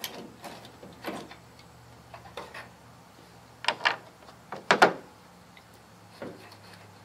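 Scattered sharp clicks and knocks as a loose plastic tail light assembly on a 2008 Dodge Ram 1500 is handled, along with a folding Torx key set. The loudest two come about four and five seconds in.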